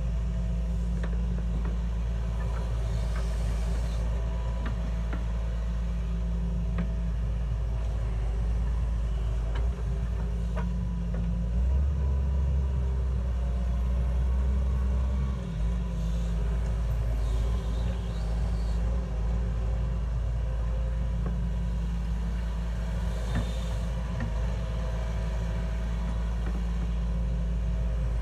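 Heavy machine's engine running steadily with a deep, constant drone, which grows louder and lower for about four seconds midway.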